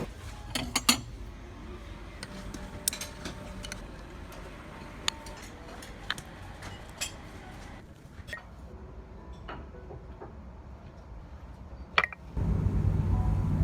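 Scattered clinks of cutlery against plates and glass over a steady low room hum. Near the end a louder, low rumble sets in.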